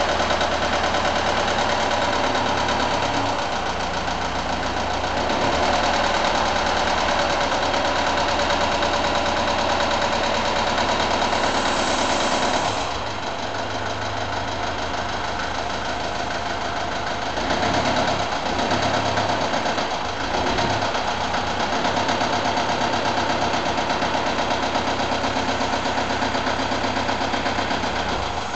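Small Deutz diesel shunting locomotive's engine running steadily while it slowly pulls a dead steam locomotive along the track. The engine note shifts a few times as the load changes.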